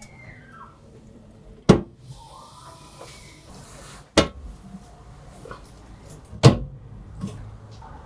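Steel barrel smoker being shut: three sharp metal clanks about two and a half seconds apart, the first under two seconds in, with a fainter knock near the end.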